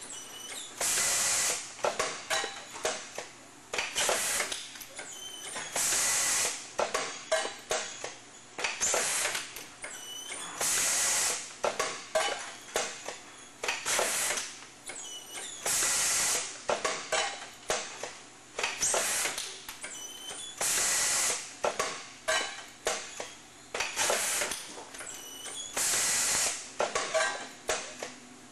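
System Packaging model 1300 roll-stock tubing bagger cycling: a short hiss of air about every two and a half seconds, each followed by a quick run of mechanical clicks and clacks.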